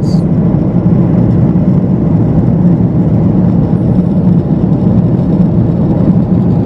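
Steady, loud cabin noise inside a Boeing 777 airliner in flight: the constant drone of the jet engines and rushing air, heaviest in the low range.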